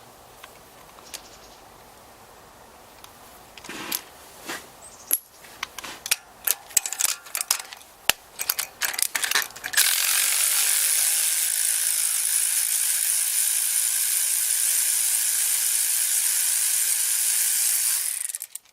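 A socket ratchet clicking in irregular runs as spark plugs are loosened. About ten seconds in it gives way to a loud steady hiss of compressed air from a blowgun clearing the plug wells, which cuts off suddenly near the end.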